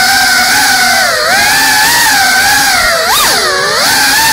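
GEPRC CineLog 35 cinewhoop drone's brushless motors and ducted propellers whining in flight, a loud steady buzz. It dips in pitch about a second in, then swoops up and sharply down about three seconds in as the throttle changes.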